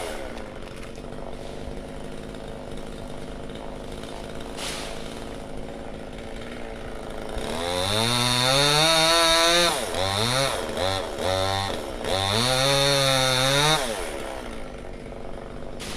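Two-stroke chainsaw idling, then revved up to high speed about halfway through, blipped several times in quick succession, held high again and let fall back to idle near the end.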